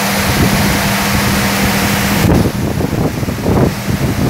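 Touchless car wash's high-pressure water jets hissing steadily over a car, with a steady pump hum, cutting off suddenly a little past halfway. An uneven low rumble is left after.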